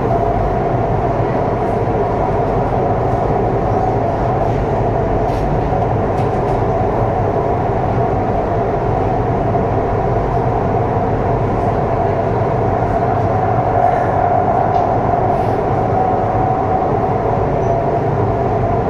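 Foshan Metro Line 3 B2-type metro train running between stations, heard inside the passenger car: a steady running rumble with a constant hum.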